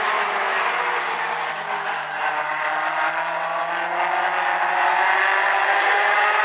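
A pack of mini stock race cars running hard, their four-cylinder engines overlapping in several notes. About four seconds in the pitch climbs as they accelerate.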